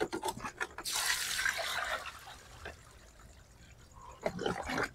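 A few clicks, then water pouring and splashing out of a 5-gallon wet/dry shop vac tub for about a second and a half, followed by a few soft knocks near the end.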